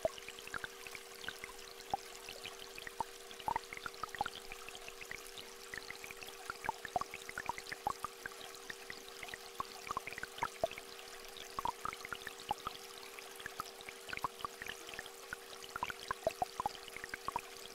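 A steady pair of close, low sine-like tones hums throughout. Beneath it a small stream trickles, with scattered drops of rain plinking irregularly.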